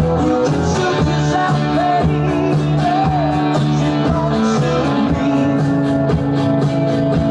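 Rock song playing: guitar over a steady drum beat, with a singing voice.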